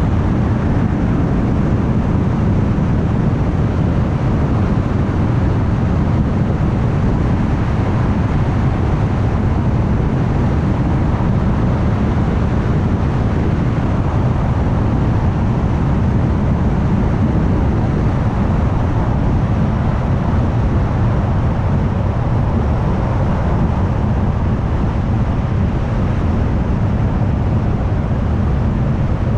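A car cruising at highway speed: steady, low road and engine noise that stays even, with no changes.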